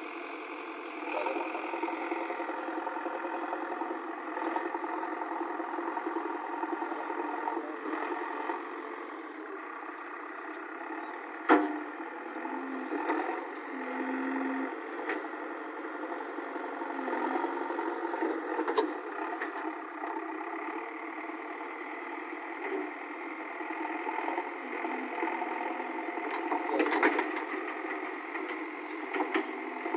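JCB 3DX backhoe loader's diesel engine running steadily, with a sharp knock about eleven seconds in and a few lighter knocks later.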